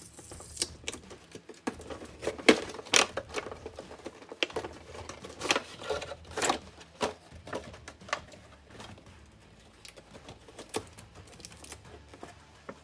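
Packaging of a boxed vinyl figurine being opened and handled: irregular clicks, taps and crinkles of cardboard and plastic, loudest around three seconds in and again around six seconds in, thinning out toward the end.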